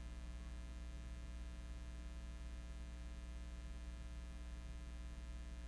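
Steady, low-level electrical mains hum with a faint hiss.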